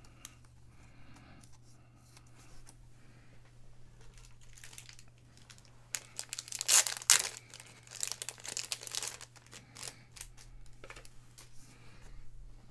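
Foil trading-card pack wrapper crinkling and being torn open, in a run of sharp crackly bursts loudest about six to nine seconds in, over a steady low hum.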